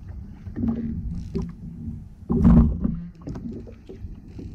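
Water slapping against a plastic kayak hull, mixed with knocks and rubbing from handling the rod and gear. The loudest is a thump about two and a half seconds in.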